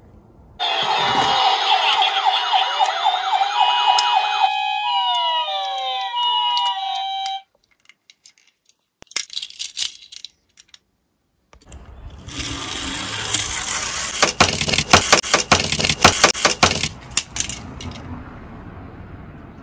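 Electronic sound effect of stepped, beeping tones and several downward glides, lasting about seven seconds. After a quiet pause, a dense run of rapid clicks and rattles lasts about five seconds.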